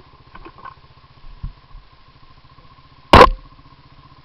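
Quad bike engine idling with an even, low putter. A single loud, sharp bang comes about three seconds in.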